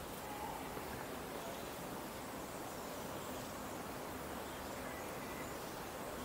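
Steady outdoor background hiss with no distinct sound standing out.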